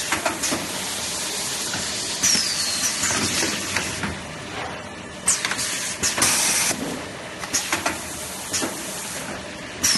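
Semi-automatic toilet roll packing machine working, with irregular knocks and clatter and several sharp bursts of compressed-air hiss from its pneumatic cylinders, the biggest about two seconds and about six seconds in, the first with a short falling whistle.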